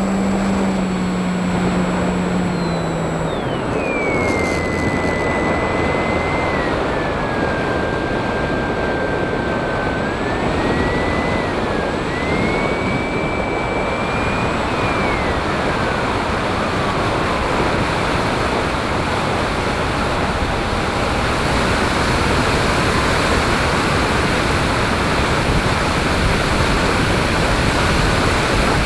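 FPV drone in flight: a steady rushing noise of propeller wash and wind, with a thin whine that glides down early on, wavers, dips lower past the middle and slowly rises again as the throttle changes.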